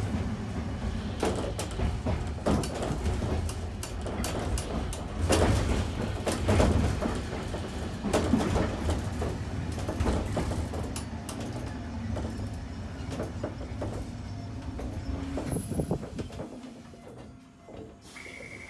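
Keifuku Electric Railroad (Randen) tram running, heard from inside the car: a steady low running noise with irregular clacks of the wheels over the rail joints. The noise eases and quietens in the last few seconds as the car slows to a stop at a station.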